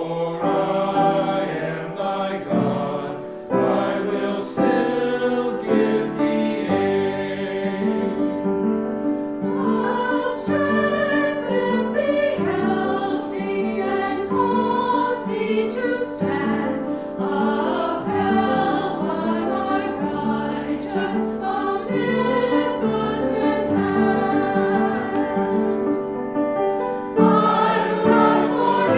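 A choir singing a hymn with accompaniment, in steady sustained chords that change about every half second.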